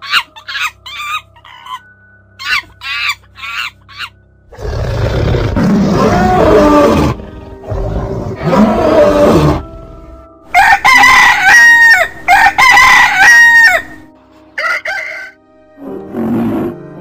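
A series of animal calls over background music: short, quick repeated calls in the first few seconds, two long, loud, rough calls in the middle, then a run of loud held pitched calls.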